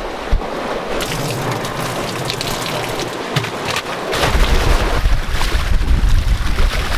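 Laundry water splashing as it is poured out of a plastic bucket. About four seconds in, a louder rush of sea water along a sailing catamaran's bow takes over, with wind buffeting the microphone.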